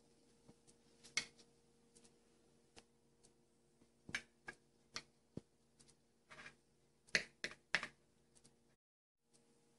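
Scattered light clicks and short scratchy taps from a peach-faced lovebird pecking and moving about, over a faint steady hum. The taps cluster in quick runs about four and seven seconds in, and the sound cuts off abruptly near the end.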